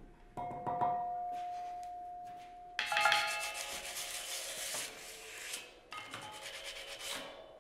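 Slotted stone block struck with a mallet, ringing with one clear steady tone that slowly fades over about two seconds. Then the stone slats are rubbed and scraped with a hand-held pad, a rasping noise with several ringing tones from the stone in it, which eases and comes again with small ticks near the end.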